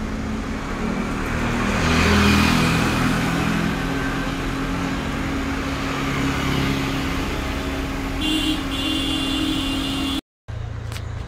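Street traffic: a motor vehicle engine running close by with a steady hum, and a louder vehicle passing about two seconds in. A high steady tone sounds for a couple of seconds near the end. The sound cuts out briefly at an edit, and different traffic noise follows.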